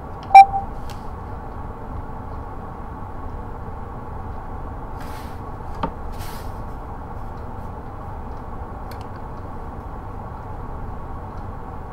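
A single sharp click with a brief pitched blip about half a second in, then a steady low background hum with a faint click and a couple of soft hisses near the middle.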